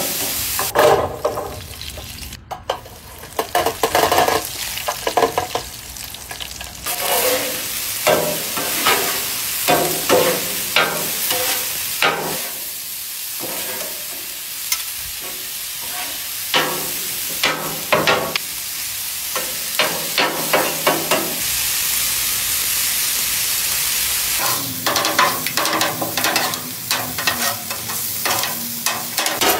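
Ground meat sizzling on a steel flat-top griddle while two metal spatulas chop, scrape and clack against the cooktop in quick, irregular strokes. There is a steady frying hiss underneath, with a stretch of fewer strokes about two-thirds of the way in.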